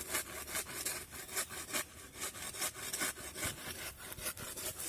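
Dry bamboo leaf litter being scraped and raked aside by hand to uncover a bamboo shoot, in quick repeated rustling strokes, about three to four a second.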